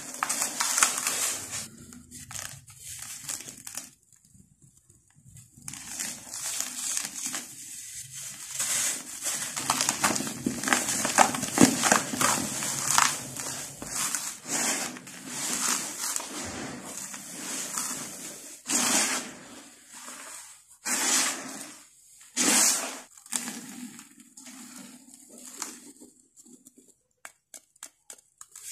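Dry, dusty moulded dirt being crushed and crumbled by hand: gritty crunching and crackling in bursts, with short pauses between them.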